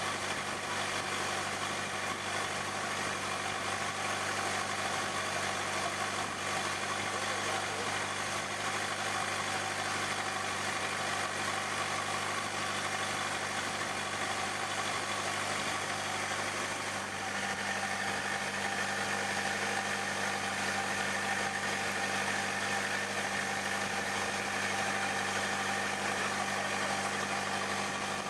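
Boat engine running steadily, its tone shifting slightly about two-thirds of the way through.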